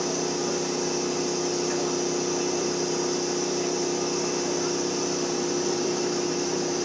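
Spray-tan machine running steadily: a constant motor hum under the hiss of air and tanning solution coming out of the spray gun.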